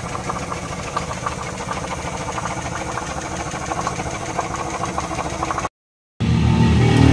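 Isuzu 4HL1 four-cylinder diesel engine idling with a fast, even clatter, freshly rebuilt with new cylinder liners, pistons, piston rings and bearings. It breaks off briefly near the end and comes back louder and deeper.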